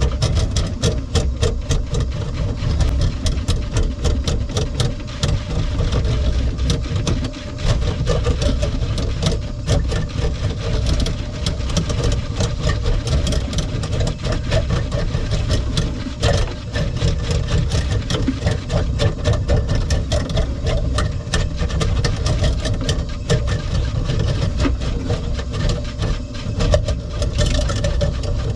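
Power drain-cleaning machine running with its cable spinning in the kitchen sink drain line, a steady motor hum under constant clicking and rattling, as it works through a greasy clog.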